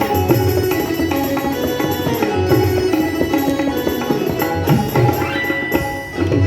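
Indian instrumental music at a sound check: tabla-style hand drums beating under a held melody line.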